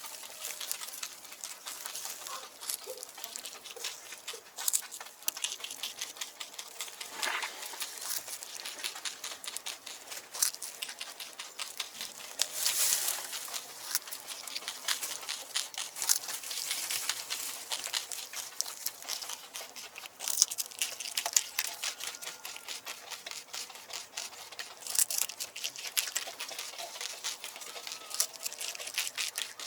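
Straw bedding rustling and crackling under a farm animal's movements: a dense, irregular patter of small clicks.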